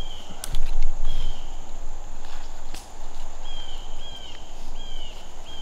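Woodland ambience: an animal calls over and over with short high chirps that hold their pitch and then drop away at the end, about six times. A low thump comes about half a second in, and a few sharp clicks are scattered through.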